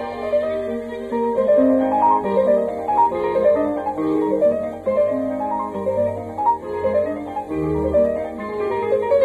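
Instrumental background music: a piano playing repeated rising runs of notes, with strings underneath. No firework bangs are heard.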